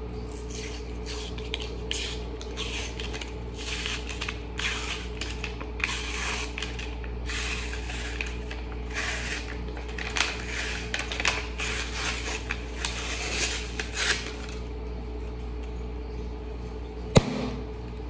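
Paper label being peeled and torn off a refrigerated dough can in a long series of short ripping strokes, then, near the end, a single sharp pop as the pressurised cardboard tube bursts open along its spiral seam.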